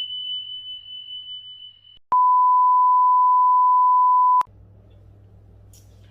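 Electronic beep tones: a single high pure tone fading away, then about two seconds in a louder, lower steady beep that holds for a little over two seconds and cuts off sharply. A faint low hum follows.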